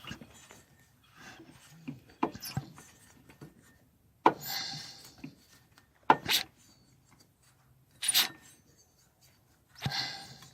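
Small four-stroke engine being turned over slowly by hand, heard close at its carburetor air intake: several breathy swooshes of air, a couple of seconds apart, as it draws in and pushes back out, with sharp clicks between. The engine is getting fuel and spark yet won't start.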